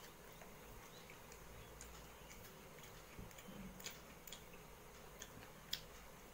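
Faint sounds of someone eating rice by hand: scattered soft clicks and smacks of chewing and of fingers working the food, the sharpest near the end, over near silence.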